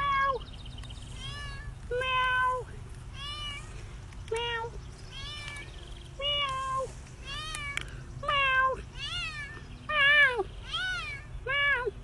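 Cat meowing over and over, about one plaintive arching meow a second.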